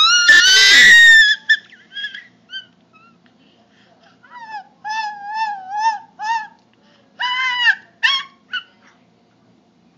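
A person making high-pitched squeaky whimpering noises with their voice, like a whining puppy: a loud rising squeal at the start, then a string of short wavering squeaks and a longer squeal about seven seconds in.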